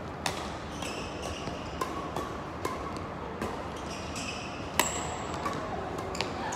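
Badminton rackets striking a shuttlecock in a doubles rally: a string of sharp cracks about once a second, the loudest near five seconds in. Short high squeaks of court shoes on the floor come between the hits.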